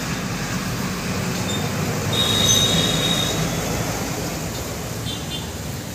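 A passing road vehicle: its noise swells to a peak about two and a half seconds in and then fades, with a brief high squeal near the loudest point.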